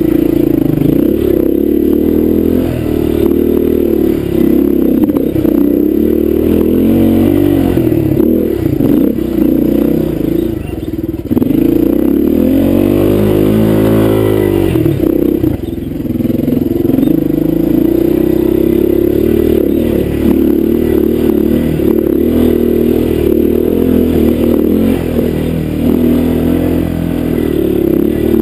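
Honda dirt bike engine running under load on a rough trail, its pitch rising and falling with the throttle, with one longer rev up and back down about halfway through as it climbs a steep bank.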